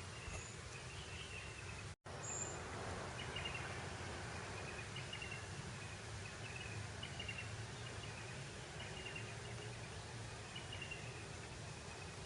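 Breeze over open grassland: a steady, even hiss with short high chirps repeating every second or two. The sound cuts out completely for an instant about two seconds in.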